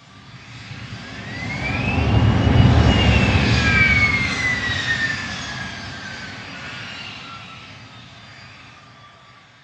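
Airplane flying past: the engine noise swells to its loudest about three seconds in, then fades away. A whine rises and then falls steadily in pitch as the aircraft passes.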